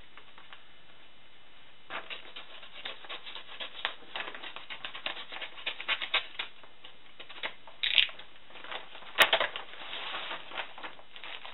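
Brown paper envelope being slit open with a small cutter and handled, the paper crackling and rustling in quick irregular clicks, with one sharp snap about nine seconds in. Near the end the plastic-wrapped T-shirt is pulled out with a denser rustle.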